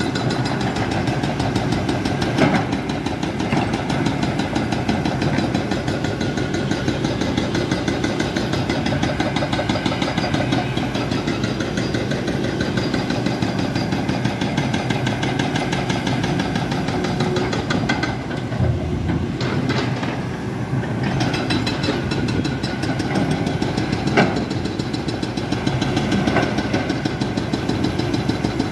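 Diesel engine of a Cat 320D tracked excavator running steadily with a rapid pulsing beat while it works. A sharp knock sounds a couple of seconds in and another about 24 seconds in.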